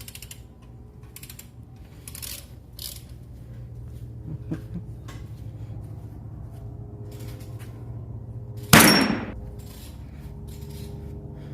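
Scattered mechanical clicks and light knocks over a steady low hum, with one loud, short clank about nine seconds in.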